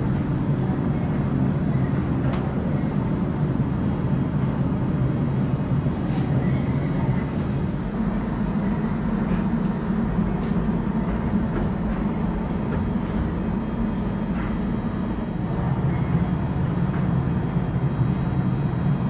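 Steady low hum and rumble of a Chiba Urban Monorail suspended train standing at the station before departure, swelling slightly twice.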